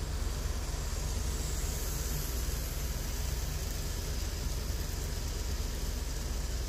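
Model commuter train running along the layout track: a steady low rumble with an even hiss, mixed with room background noise.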